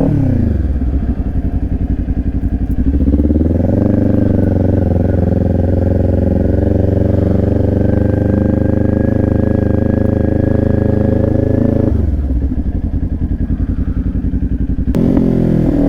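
Kawasaki Ninja 400 parallel-twin motorcycle engine at town speed. The revs drop to a low burble in the first second, climb again about three seconds in, and hold a steady pull. Near the twelve-second mark they fall back to a low idle, then pick up once more just before the end.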